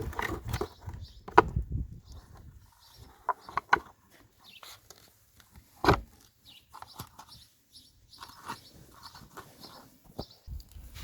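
Irregular knocks and clicks, the loudest about a second and a half in and again about six seconds in, with short bird calls in between.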